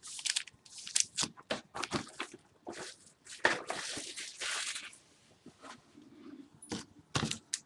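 Plastic packaging crinkling and tearing as a sealed box of trading card packs is unwrapped and opened: a run of quick crackles with a longer rustle about halfway through.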